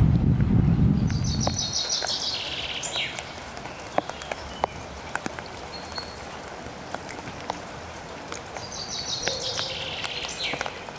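Rain ticking and dripping on leaves and roofs while a songbird sings the same short phrase twice: a fast run of high repeated notes that slides lower, once about a second in and again near the end. A low wind rumble on the microphone dies away within the first two seconds.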